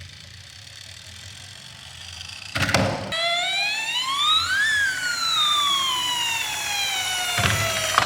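Emergency siren wailing: after a short loud rattle about two and a half seconds in, one slow cycle rises for about two seconds and then falls steadily for about three. A second brief rattle comes near the end.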